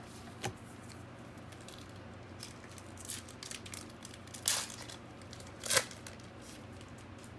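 Foil football card pack wrapper being handled and torn open: a few short crinkling rips, the two loudest about four and a half and six seconds in.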